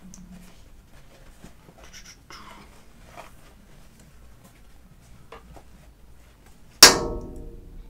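Soft rustling and handling of a canvas-and-leather belt bag being turned and folded in the hands, then a sudden loud knock near the end that rings briefly and dies away.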